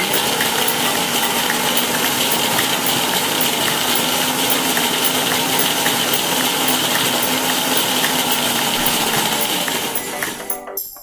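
Electric mixer grinder running at full speed, grinding a coarse white mixture in its stainless-steel jar, with the pieces clinking against the metal. Near the end the motor slows and stops.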